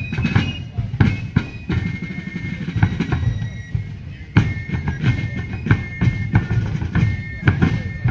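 Fife and drum corps playing a march: shrill fifes holding high notes over a steady beat of snare drums and a bass drum. The fifes drop back in the middle and come in strongly again about halfway through.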